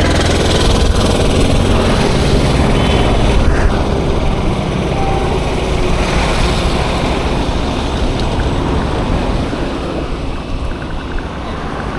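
Road traffic: a heavy vehicle's engine running close by, loudest over the first few seconds and then slowly fading, over steady road and tyre noise.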